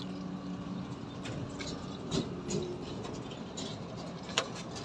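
Quiet roadside background: a steady low noise with a faint engine hum from a nearby vehicle, and a few scattered light clicks.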